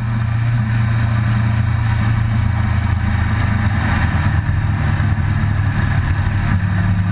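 Vehicle engine running steadily while driving, with road and wind noise.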